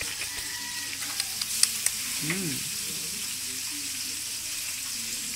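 Cat eating fish and broth from a plastic dish: wet chewing and slurping, with a few sharp clicks between one and two seconds in, over a steady hiss.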